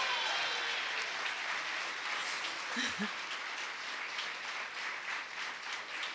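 Audience applauding with dense, even clapping that eases slightly toward the end. A short shout from the crowd comes about three seconds in.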